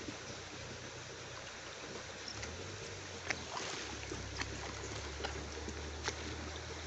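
Small hand pick chopping into waterlogged mud: a few sharp clicks and knocks over a steady trickle of water.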